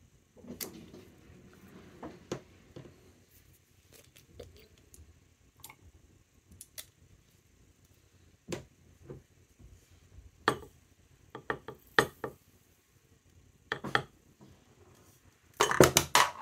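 Scattered small clicks and taps of plastic dropper bottles of ink reinker being handled and dripped into a small glass mason jar of dye. Near the end, a quick run of louder clinks as a metal spoon goes into the glass jar to stir it.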